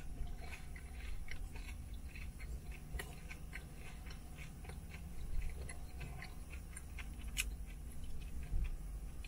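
Close-up chewing of a crispy fried egg roll with a chicken melt filling, small crunches of the fried wrapper and two sharper crunches, over a steady low hum.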